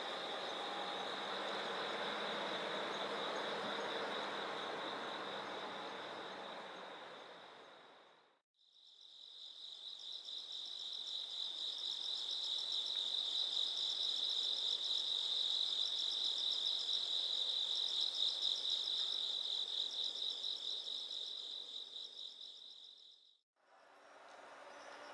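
Crickets chirping in a steady night chorus, a fast pulsing trill held at one high pitch. An even background noise lies under it at first. The sound fades out completely and back in twice, the chirping loudest in the middle stretch.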